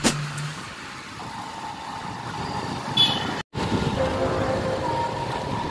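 Motorbike and street traffic noise, steady, broken by a sudden cut about three and a half seconds in, after which the traffic noise resumes with a steady held tone.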